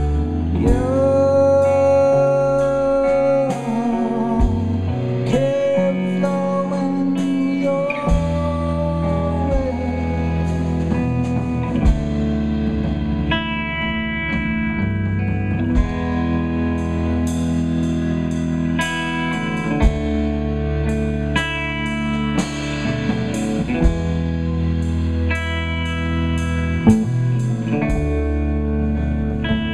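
Live rock band playing: electric guitar over bass and drums, with a few long held notes in the first ten seconds and regular cymbal strokes.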